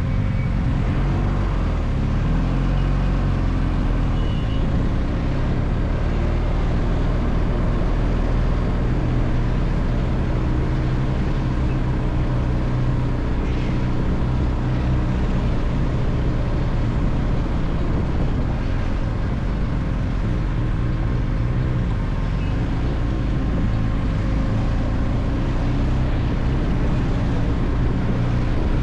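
Steady vehicle engine and road noise, strongest in the low end, with no marked changes.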